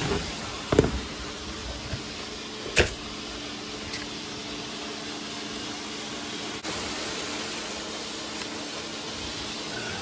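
Robot vacuum cleaners running with a steady hum. Two sharp knocks come about one second and three seconds in.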